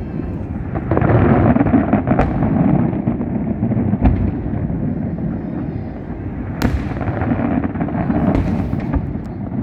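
Fireworks display: a continuous rumble of booming bursts overlapping one another, with sharp cracks now and then. The loudest crack comes about two-thirds of the way through, and there is a brief crackle near the end.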